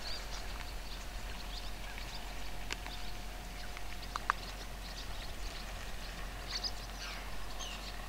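Several birds calling: many scattered short, high chirps and squeaks, with a single louder short note about four seconds in.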